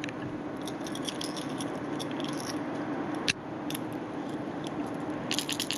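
Storm Thunder Barra lure being shaken by hand, its rattle balls inside the hollow plastic body giving a steady fine rattle, with one sharp click about three seconds in and quicker, denser clicking near the end.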